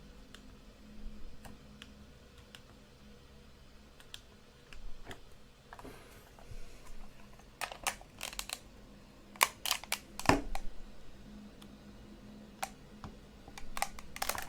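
Scattered clicks of small plastic buttons being pressed, singly and in short runs, busiest and loudest about eight to ten seconds in, over a faint steady hum.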